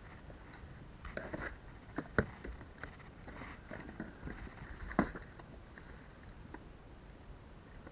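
Irregular knocks, taps and clicks, the sharpest about two seconds and five seconds in, growing sparse after about six seconds, over a low rumble.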